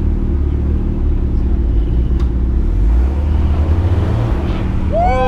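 Steady low rumble of a Jeep Cherokee XJ driving slowly, its engine and drivetrain running under light load. Near the end a short voice call cuts in, falling in pitch.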